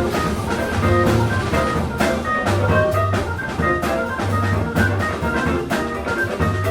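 Background music: an instrumental jazz-funk track with drum kit, guitar and brass playing over a steady beat.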